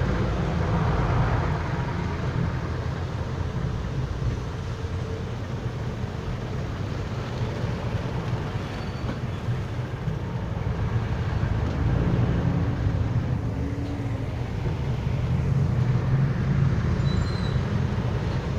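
Jeepney's engine running under way, heard from inside the cabin as a steady low drone that swells and eases a little. Over it lies an even hiss of heavy rain.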